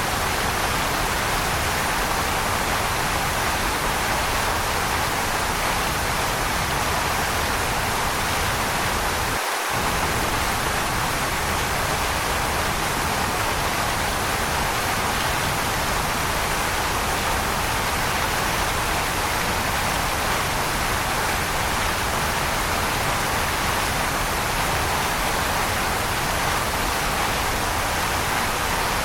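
Waterfall: a steady, even rush of falling water, with a momentary drop in the deep low end about nine seconds in.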